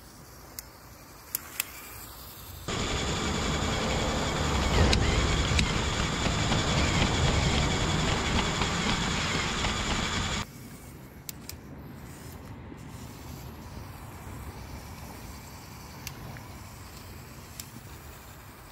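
Motorized LEGO Technic model driving on asphalt. From about three seconds in to about ten seconds, a loud close-up run of its Power Functions L motor and plastic gears whirring with the wheels rumbling over the rough road, starting and stopping abruptly. Before and after it is much quieter.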